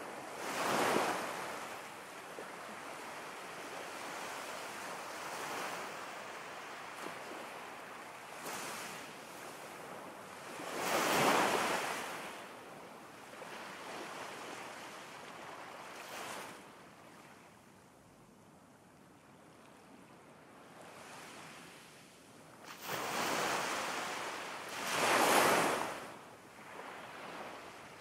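Ocean waves washing in and drawing back: an even rush of surf that swells into slow surges several times, with a quieter lull past the middle.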